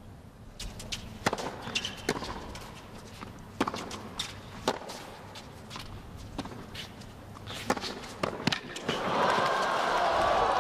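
Tennis rally: a ball struck back and forth with rackets on a hard court, sharp hits about once a second. About nine seconds in, crowd noise swells as the point ends.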